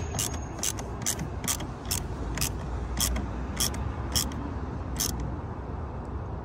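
Socket ratchet with an extension clicking on its back strokes, about twice a second, while a battery cable terminal bolt is tightened. The clicking stops about five seconds in.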